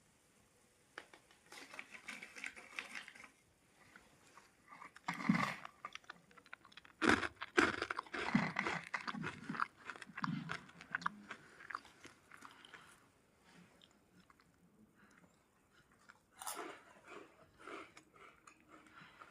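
Close-up crunching and chewing of crisp fried snacks such as potato chips, in bursts of crackly bites with quieter pauses between.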